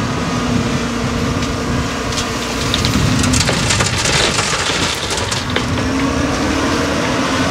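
Wheel loader tipping a bucket of small rocks and dirt into a truck's tipper trailer, the rocks pouring and clattering into the bin for a few seconds in the middle, over a diesel engine running steadily.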